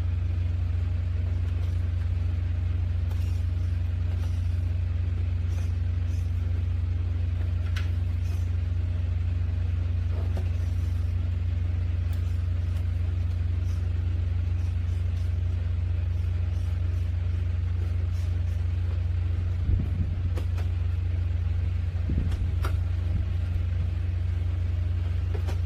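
A steady low rumble throughout, with a few faint clicks and light taps, a small cluster of them about twenty seconds in and again about two seconds later.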